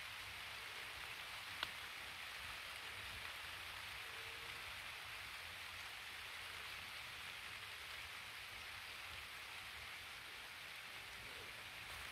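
Light rain falling: a steady, even hiss, with one sharp tick about a second and a half in.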